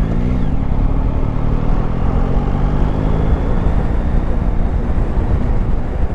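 Yamaha Tracer 9 GT's 890 cc inline three-cylinder engine running as the bike rides along, with wind rush on the helmet microphone. Its pitch rises and falls briefly near the start, then holds fairly steady.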